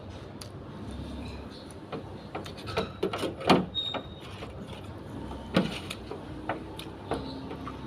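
A person eating pork noodle soup close to the microphone: chewing and slurping, with a cluster of sharp clicks and knocks a few seconds in and another shortly after.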